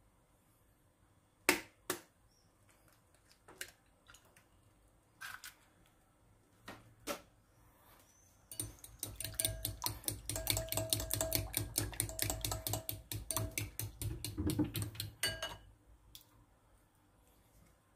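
A metal fork beating eggs in a glass bowl: a fast, even clatter of fork on glass, starting about halfway through and lasting about seven seconds. Before it come a few scattered sharp taps and knocks, the loudest a pair near the start.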